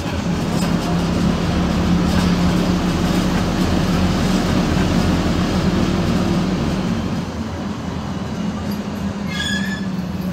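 Cabin noise of a PAZ 4234-04 bus under way: steady engine drone with road and tyre noise, easing off over the last few seconds. A brief high-pitched squeal sounds about nine seconds in.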